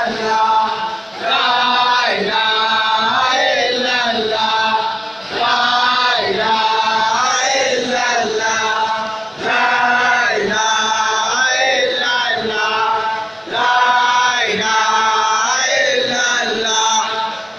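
A large group of men chanting a dhikr in unison, a short devotional phrase repeated over and over in a steady rhythm, with a brief dip about every four seconds.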